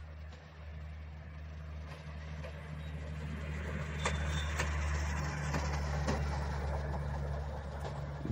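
KOLZAM rail motor trolley's engine running steadily as it approaches and passes, growing louder to a peak about four to six seconds in. Its wheels click sharply over rail joints several times as it goes by.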